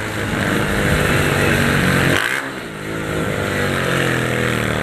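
Honda CG 150 Titan's single-cylinder four-stroke engine running through a straight-through exhaust pipe, pulling hard under acceleration. The engine note dips sharply a little over two seconds in, then climbs again.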